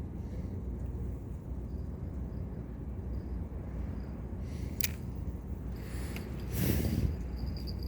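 Steady low outdoor rumble, with one sharp click about five seconds in and a brief louder rush of noise near the end.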